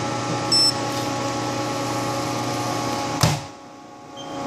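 TurboChef Tornado high-speed oven's blower running with a steady hum, a short high electronic beep about half a second in. Just after three seconds a sharp clunk as the oven door shuts, after which the hum drops away, then comes back on near the end.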